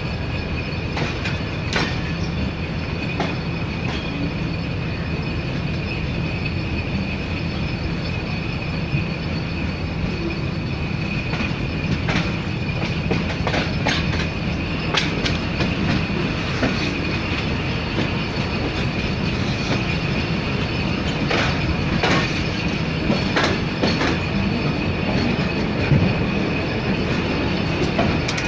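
Passenger train coach rolling slowly, heard from its window: a steady rumble of wheels on track with a continuous high-pitched wheel squeal, and irregular clicks and knocks as the wheels cross rail joints and points.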